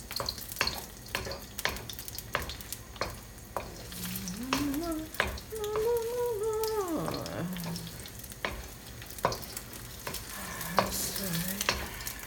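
Beaten eggs frying in hot olive oil in a pan, sizzling steadily with frequent sharp pops and clicks. A short hummed tune rises and falls in the middle.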